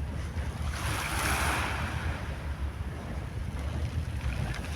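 Sea waves washing onto the shore, one swelling up about a second in, with wind rumbling on the microphone.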